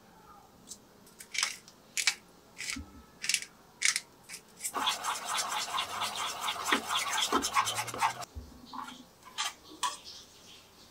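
A spoon stirring thick chili-paste sauce briskly in a small stainless steel bowl, a fast run of scraping strokes, several a second, for about three seconds that stops suddenly. Before and after it, a few separate sharp clicks of a spoon against the bowl.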